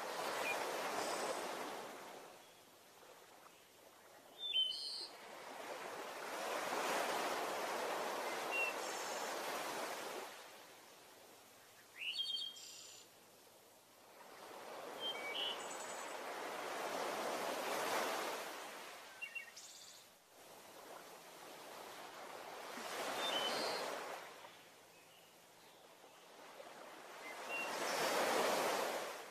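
Waves washing in and drawing back in slow swells about every five or six seconds, with short bird chirps between the swells.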